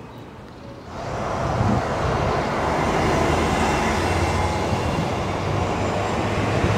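Loud road traffic: a vehicle passing close by, a steady rush of noise with a low rumble, starting suddenly about a second in.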